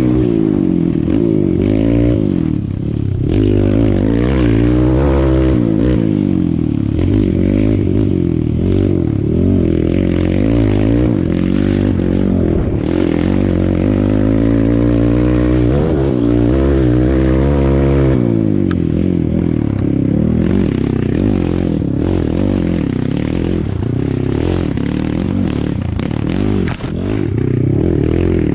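Kawasaki KLX dirt bike's single-cylinder four-stroke engine being ridden hard, revving up and down every second or two as the throttle is worked, running lower and steadier for the last stretch.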